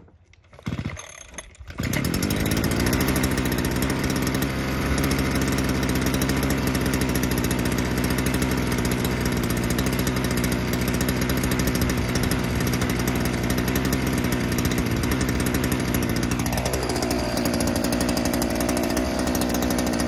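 Brushcutter engine running steadily, cutting in abruptly about two seconds in; near the end the revs drop and it settles at a lower speed.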